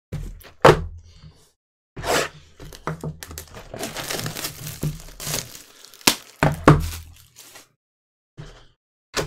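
Cardboard trading-card boxes being handled by gloved hands: a few sharp thunks as boxes are knocked and set down, with rustling, crinkling and sliding in between.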